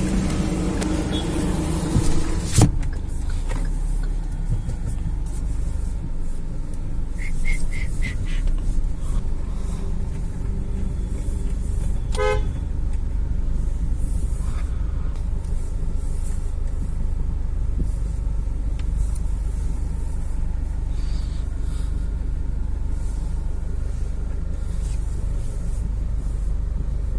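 Kia Seltos diesel driving, with a steady low road and engine rumble. A quick run of four high beeps comes about seven to eight seconds in, and a short car horn toot about twelve seconds in.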